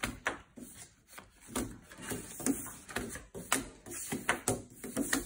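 Playing cards being passed hand to hand and dropped onto a wooden tabletop: irregular light slaps and rubs of card on wood.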